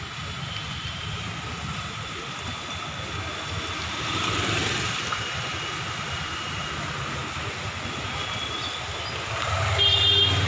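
Steady low rumble of vehicles running, growing louder near the end, where a brief high-pitched tone also sounds.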